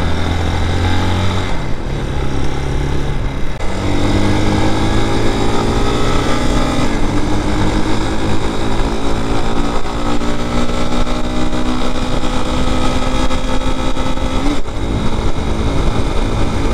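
Bashan Brozz 250's 229cc air-cooled single-cylinder engine pulling under way, its note climbing slowly and dropping back about three and a half and about seven seconds in at upshifts, with a short blip near the end. Wind rush on the microphone runs under it all, and the engine itself runs quietly.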